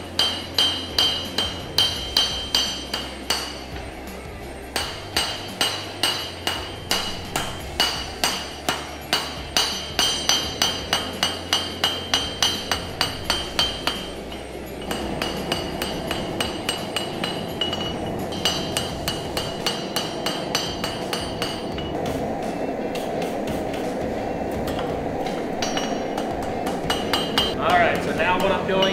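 Hand hammer striking a hot 1095 steel knife blade on a steel anvil, about three blows a second, each with a bright metallic ring: light glancing hits that set the plunge line and the initial bevel. About halfway through the hammering eases off and a steady rushing noise takes over under lighter taps, then a quick run of blows comes near the end.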